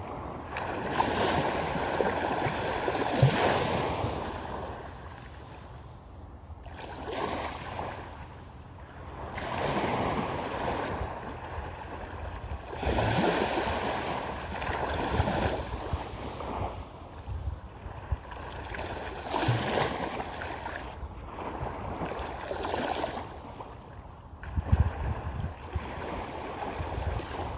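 Small waves on a calm sea washing in and drawing back, a swell of hiss every few seconds. A few low thuds near the end.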